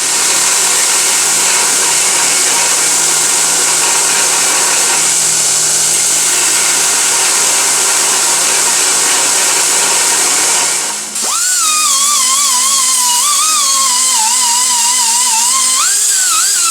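Small power tool trimming a 3D-printed plastic bracket, running steadily with a loud hiss of cutting. About eleven seconds in it changes to a high, wavering whine as the load on the motor shifts.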